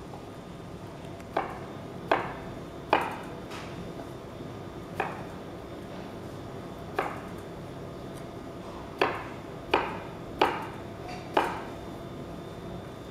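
Chef's knife dicing musk melon on a plastic cutting board: nine sharp chops at uneven intervals, the last four coming faster, over a steady faint hum.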